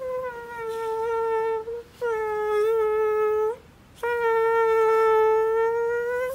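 A woman imitating a housefly with her voice: three long, steady, buzzing hums at one pitch, separated by short breaths, the last starting about four seconds in.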